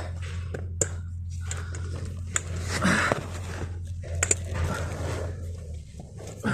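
Close handling noise: scattered clicks, knocks and rustling as camera and gear are shifted to free the hands, over a steady low hum that fades out near the end.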